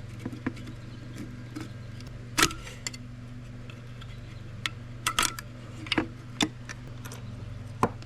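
Irregular small clicks and taps of plastic parts and circuit boards being handled as a digital dash gauge cluster is taken apart, the sharpest about two and a half seconds in, over a steady low hum.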